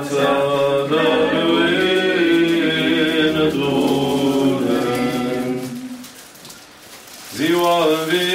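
Romanian Orthodox Easter chant sung unaccompanied in long drawn-out notes. The line fades out about six seconds in, and singing starts again near the end.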